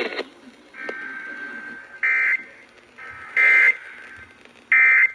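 Weather radio receiver playing the end-of-message data bursts of a NOAA Weather Radio broadcast: three short, loud, buzzy warbles about a second apart, marking the end of the flash flood warning, with a fainter steady buzz of the same pitch between them.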